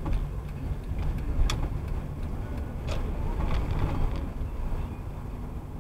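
Low road and engine rumble heard inside a moving car's cabin, with a few sharp clicks or rattles, the clearest about a second and a half in and again near three seconds.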